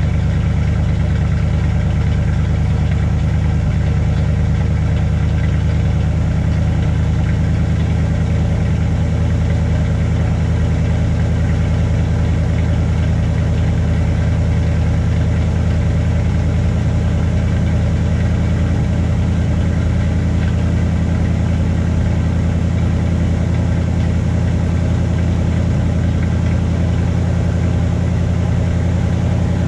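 1984 Dodge D150 pickup's engine idling steadily while it warms up from a cold start, heard at the tailpipe. There are no revs.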